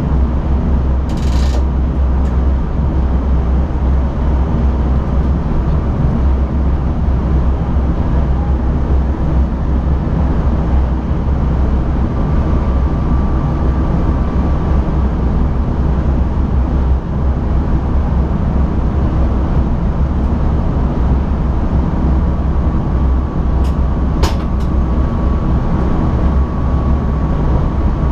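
Inside the driver's cab of an NS ICM (Koploper) electric multiple unit running along the line: a steady low rumble of running noise. A faint steady whine comes in partway through. There is a short hiss about a second in and a couple of sharp clicks near the end.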